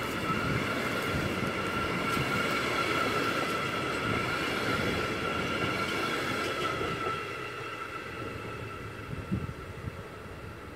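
A freight train of empty container flat wagons rolling past over the rails, with a steady high-pitched squeal over the rolling noise. Both fade from about seven seconds in as the last wagons pull away, leaving a few faint knocks.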